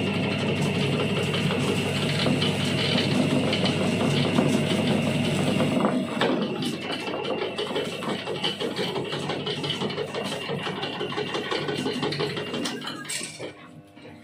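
Electric motor of a foil roll cutting machine running steadily, spinning a roll of gold stamping foil while the cutter blade is held against it to slice off a short roll. The motor hum stops about a second before the end.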